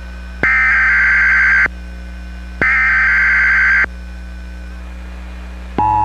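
Emergency Alert System SAME header: two harsh, buzzy digital data bursts, each a little over a second long and about a second apart, then after a pause the steady two-tone EAS attention signal starts near the end. A low mains hum sits under it throughout.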